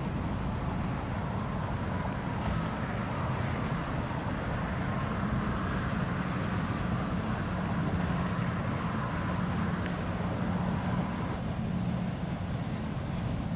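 Boat engines running on the water with a steady low drone, and wind buffeting the microphone.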